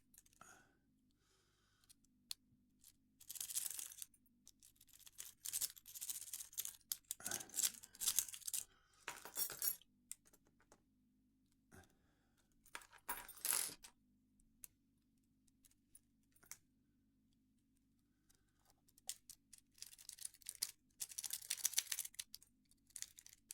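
Lock pick rake being scrubbed in a Master Lock 9140 padlock: bursts of light metallic scraping and clicking, with quiet pauses between them.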